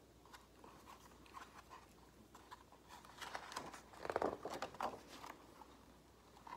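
Paper of a large picture book rustling and crinkling as a page is turned, loudest about four seconds in.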